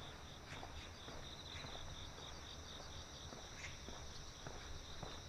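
Crickets chirping in a steady high-pitched chorus, one of them pulsing in a regular beat, with soft footsteps of someone walking about twice a second.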